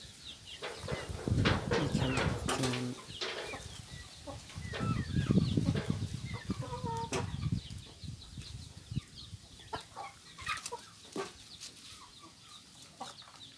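Chickens clucking, over rustling and bumping from hands handling a held rooster, louder in the first half.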